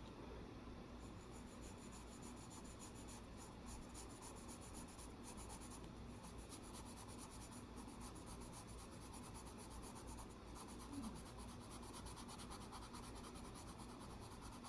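Faint, steady scratching of colored pencils shading on smooth paper.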